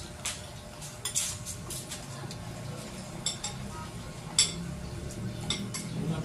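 Spoons and forks clinking against plates as several people eat, with sharp clinks scattered through, the loudest about four seconds in.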